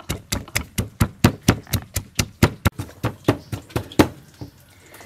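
Wooden pestle pounding chilies and garlic in a mortar: rhythmic dull knocks, about four a second, stopping about four seconds in.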